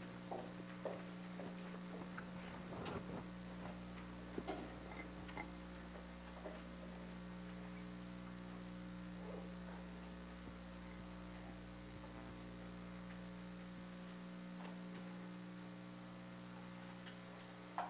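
Steady low electrical mains hum, with a few faint clicks and knocks in the first few seconds and one more near the end.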